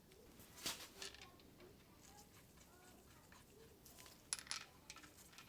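Near silence in the workshop, broken by a few faint clicks and knocks of parts being handled: one less than a second in and a short cluster around four and a half seconds.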